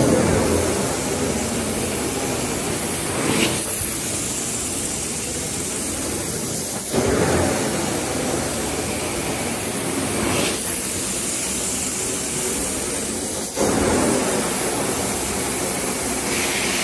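Carpet-cleaning wand on a Sapphire Scientific 870 truckmount, its vacuum suction running with a steady hiss over the carpet. The sound surges and shifts in tone about every three and a half seconds as each wand stroke begins.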